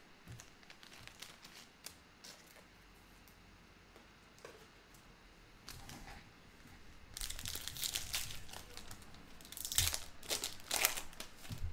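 A 2019-20 Court Kings basketball card pack's shiny foil wrapper crinkling and tearing as it is opened, in several loud bursts from about seven seconds in; before that only faint handling clicks.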